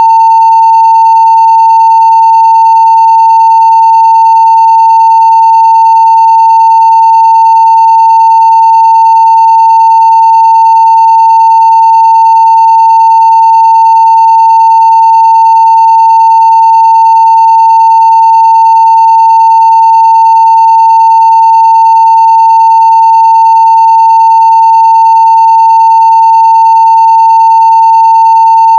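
A steady 900 Hz sine test tone at full scale (0 dB), one loud, unbroken pitch with no change.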